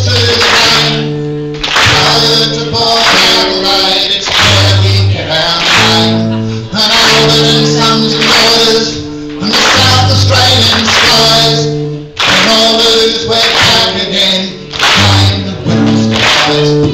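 A man sings a rousing football club anthem to his own strummed acoustic guitar, with the audience clapping along in time.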